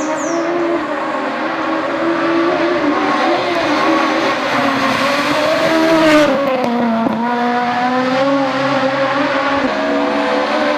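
Rally car engine at high revs, its pitch rising and falling with throttle and gear changes. It is loudest about six seconds in, as the car passes.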